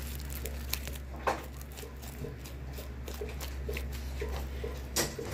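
Sticky slime being handled and pulled apart by hand, giving a few sharp clicks and pops, the loudest about a second in and again near the end, over a steady low hum.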